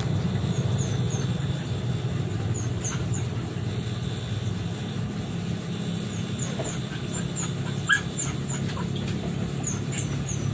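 Steady low hum with a dog, likely a puppy, whimpering and yipping in short high-pitched calls, repeated many times.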